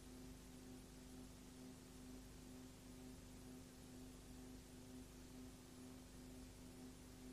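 Near silence: a faint steady hum with hiss.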